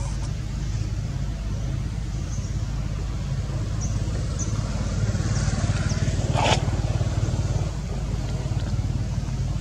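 Steady low outdoor rumble that swells a little just past the middle, with one brief sharp sound about six and a half seconds in.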